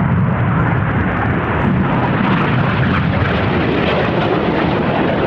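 Steady, loud rush of BAE Hawk jets' turbofan engines in flight, low-heavy.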